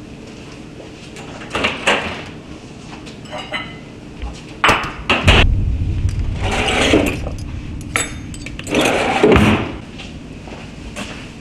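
Kitchen drawers and cabinet doors being opened and shut: a few sharp knocks, the loudest a heavy thump about five seconds in, and two longer sliding rushes.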